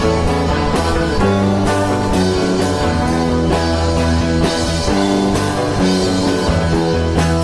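Rock music: guitars over a drum kit keeping a steady beat.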